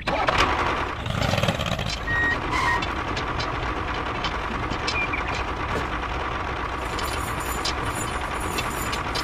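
Tractor engine sound effect running steadily.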